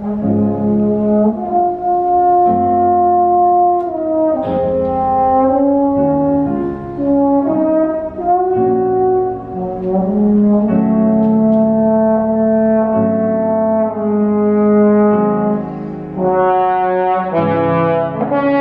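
Slide trombone playing a slow, lyrical melody of held notes, coming in loudly at the start and moving through several phrases with brief breaths between them.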